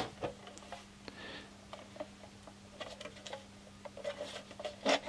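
Scattered light clicks and taps of a Shooting Chrony chronograph's hinged metal case being handled and opened, with a cluster of louder clicks near the end.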